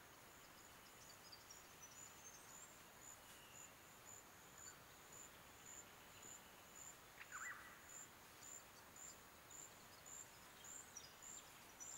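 Faint insect chirping: a high, regular chirp repeating about twice a second over quiet forest ambience, with one brief different chirp about seven seconds in.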